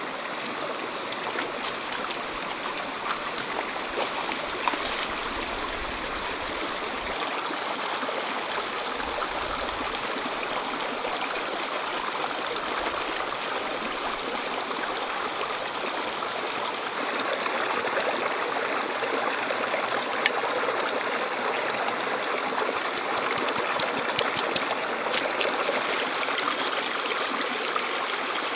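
Shallow rocky stream running and trickling, with small splashes and drips as a fish is rinsed and rubbed by hand in the water; the splashes come more often in the second half.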